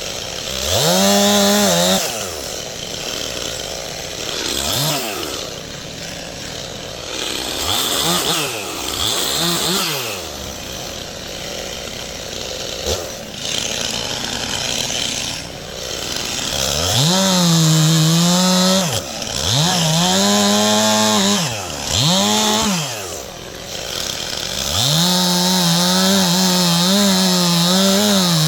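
Stihl MS 291 two-stroke chainsaw idling between quick blips of the throttle, then run up to full speed again and again, cutting through oak branches, its pitch sagging slightly under load.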